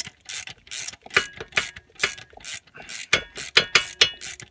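Hand ratchet wrench being worked back and forth in quick strokes, clicking about two or three strokes a second, with brief metallic rings.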